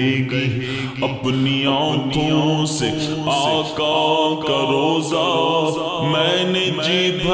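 Naat, Urdu devotional poetry, sung as a slow wavering vocal melody over a steady low drone.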